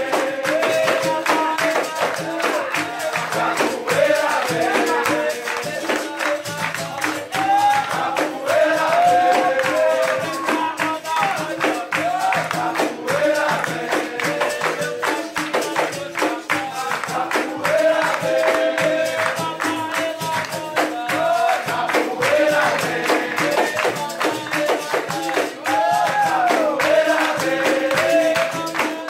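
Live capoeira roda music: berimbaus twanging, an atabaque drum and a jingling pandeiro keeping a steady rhythm, with group singing and the circle clapping along.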